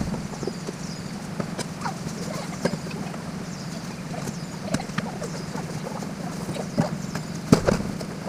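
Irregular light knocks and clicks of objects being handled, the sharpest about two thirds and seven and a half seconds in, over a steady low hum.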